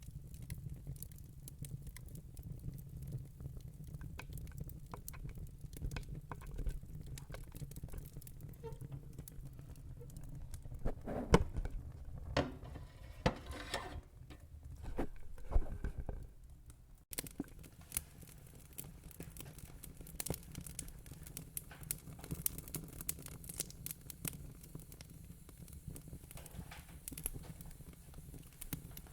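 Crackling wood fire: scattered snaps and pops over a low rumble, with a louder run of pops in the middle.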